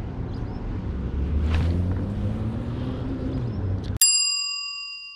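Steady outdoor rumble with a short swish about one and a half seconds in. Near the end the background cuts off abruptly and a single bell-like ding rings out and fades: an edited-in sound effect.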